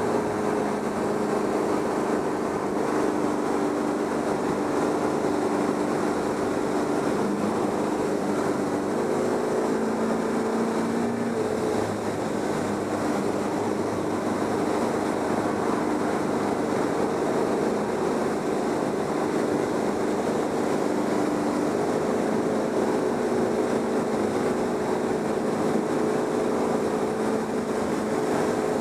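Motorboat engine running steadily, its pitch stepping to a new level a few times (about 9, 12 and 22 seconds in), over a steady rush of water and wind.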